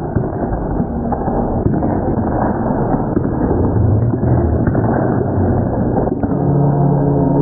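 Loud, indistinct crowd and gym noise with scattered knocks. About six seconds in it breaks off and steady held tones begin.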